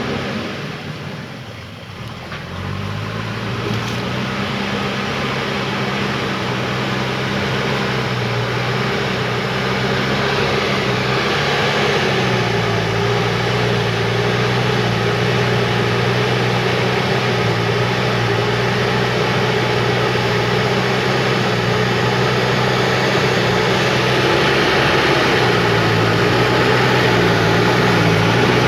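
Diesel engine of a JCB backhoe loader running steadily under work, its pitch shifting a little a couple of times as the load changes.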